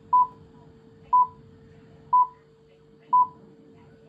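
BBC Radio 4's Greenwich Time Signal, the pips, received on the FM radio of a 1978 Hitachi P-27FM TV-radio and played through its speaker: four short beeps of one pitch, one a second, counting down to the hour, with the fifth just starting at the end. A faint steady hum runs underneath.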